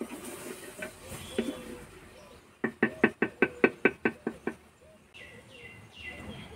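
A ladle stirring and scraping in a clay cooking pot, then knocking against the pot about a dozen times in quick succession, roughly six a second. Near the end a bird calls four short falling chirps.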